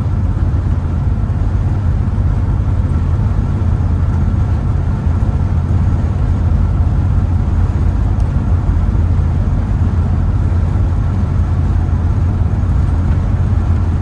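Camper's engine and road noise heard from inside the cab while cruising, a steady low drone with tyre rumble. The camper is riding smooth on its road test.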